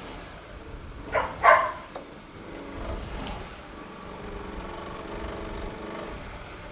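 Mini Countryman R60's engine running at low speed as the car creeps forward onto wooden ramps, with a deeper rumble swelling about three seconds in. Two short, loud, sharp sounds cut in about a second in.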